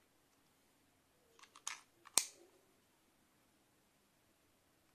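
Small plastic clicks from the battery compartment of a Dr Morepen GlucoOne BG-03 glucometer as a coin cell is fitted and the compartment is closed. A few light clicks come about a second and a half in, then one sharp, louder snap just after two seconds.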